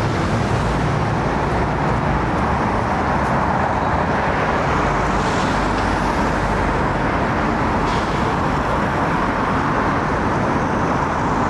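Steady road traffic noise from a busy city street, a continuous hum of passing vehicles.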